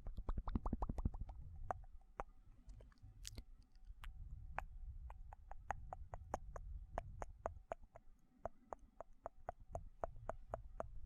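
Close-miked ASMR mouth sounds: wet tongue clicks and lip smacks, a quick run of them in the first second or so, then sparser clicks a few per second.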